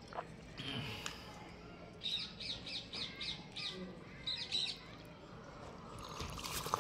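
A small bird chirping: a quick run of short, high chirps, about four a second, then a few more a moment later.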